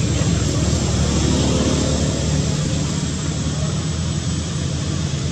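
Steady low engine drone, with a faint hiss over it.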